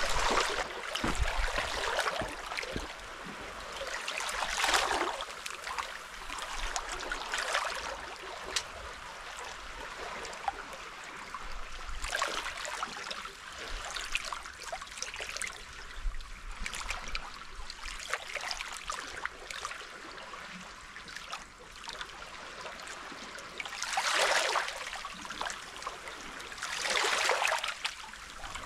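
Small sea waves lapping and washing over shoreline rocks, swelling every few seconds and trickling back between swells.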